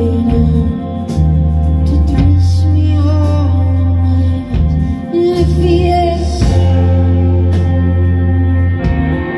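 Live band playing a slow, heavy song: deep sustained bass notes that break off briefly every second or two, with drum and cymbal hits over them.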